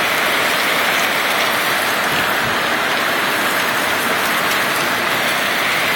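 Heavy tropical-storm rain pouring down steadily, a constant hiss with no letup.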